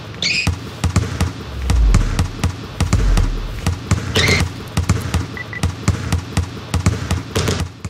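Basketballs bouncing in quick, irregular dribbles, with some deeper thuds, and a short high-pitched squeak near the start, another about four seconds in, and one near the end.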